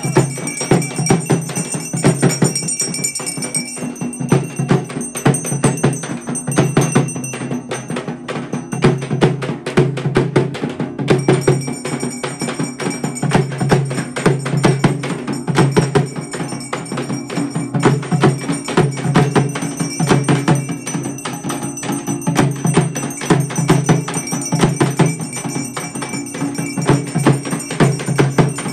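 Music with a fast, dense percussion rhythm of shaker- or tambourine-like strokes over a steady low bass line.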